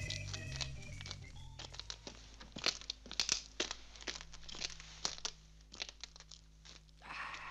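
Organ music fades out over the first couple of seconds. Then two people's footsteps crunch on gravel in quick, irregular steps, stopping shortly before the end.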